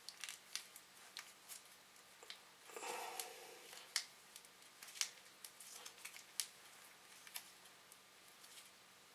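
Faint handling sounds of a brake pad and a packet of anti-squeal compound in the hands: light scattered clicks, about one a second, and a brief rustle about three seconds in.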